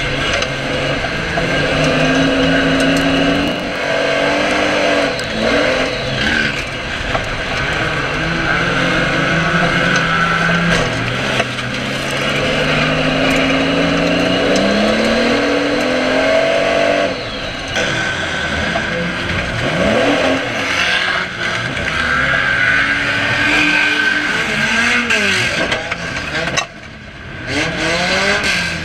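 Banger race car engines running hard and revving, the engine note climbing and dropping again several times as the cars accelerate and lift off. Occasional knocks and bangs of cars hitting each other and tyre noise on the dirt track come through.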